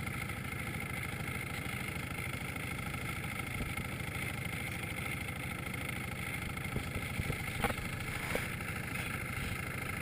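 Long-tail motorboat engine running steadily at speed with a fast, even pulse, over the rush of water from the hull and wake.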